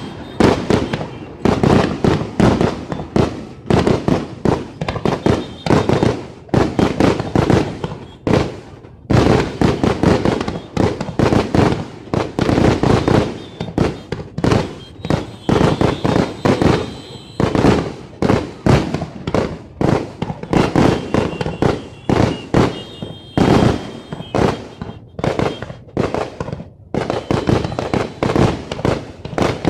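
New Year fireworks going off in a continuous rapid barrage of sharp bangs, several a second, with brief lulls about nine seconds in and again near the end.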